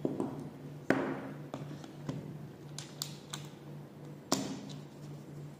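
Plastic clicks and taps from a Zebra TC7x-series rugged handheld computer being handled while its battery is swapped. There are about six separate knocks, the loudest a snap about a second in and another just after four seconds.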